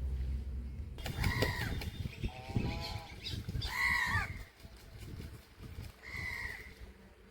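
Birds calling: four harsh, drawn-out calls of about half a second each, the loudest near four seconds in, over a low rumble.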